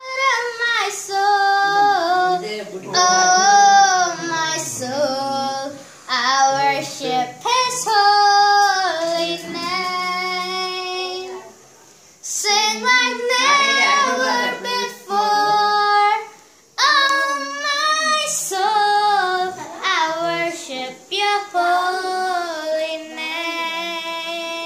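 A boy singing a worship song solo and unaccompanied, in phrases with long held notes and a couple of short breaths between them.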